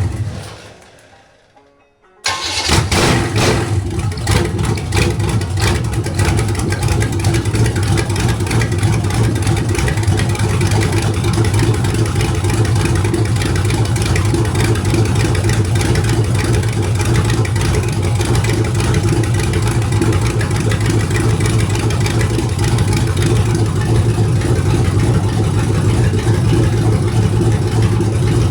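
Cold 1973 Chevrolet 350 small-block V8 with a big cam and headers being started. A first firing dies away, then about two seconds in it catches and runs steadily on the carburetor's cold fast-idle setting.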